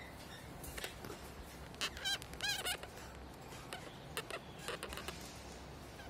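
Rosy-faced lovebirds chirping: a quick run of sharp, wavering calls about two seconds in, with scattered short chirps before and after.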